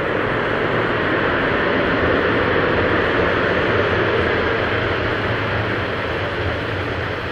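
Airbus A321 airliner's jet engines running, a loud steady rush of engine noise as the aircraft moves along the runway, swelling slightly midway and easing a little near the end.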